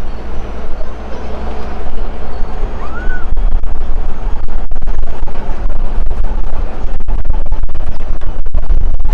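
Low rumble of an open-sided safari truck's engine and ride noise as it drives over the reserve track, growing louder about three seconds in.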